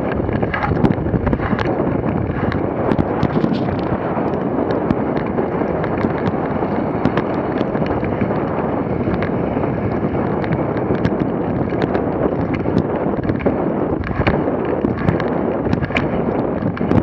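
Dog sled runners rattling and scraping over a packed snow trail at speed: a dense, steady rumble full of sharp crackles and clicks.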